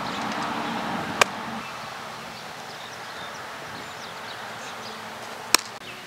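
Two sharp, single smacks of a baseball, about a second in and near the end, over a steady outdoor background hiss.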